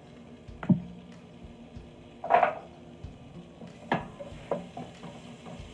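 Wooden spoon knocking and scraping against a stainless steel pot while pushing pieces of butter around as they start to melt: a knock about a second in, a louder scrape a little past two seconds, and two more knocks near four seconds.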